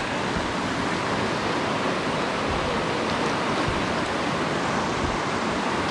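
River rapids: the steady rush of whitewater over rocks, with water moving close around the kayak.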